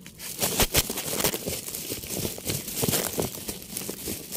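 Hands digging through potting soil and dense fibrous roots around mango ginger rhizomes in a planter bag. It makes irregular crackling and rustling with many small snaps.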